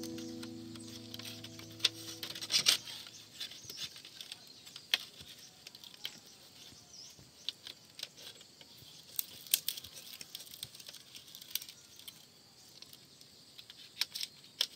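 Background music fading out over the first two seconds, then scattered light clicks and taps, a few sharper ones around two, five, nine to ten and fourteen seconds in.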